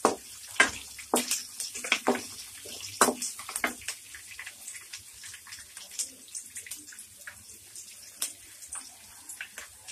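Wooden spatula stirring and knocking against a kadai as vegetables fry in oil, with a light sizzle underneath. The knocks come every half second or so in the first few seconds, then thin out to occasional ticks.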